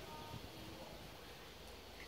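Quiet outdoor background with faint rustling; no distinct sound stands out.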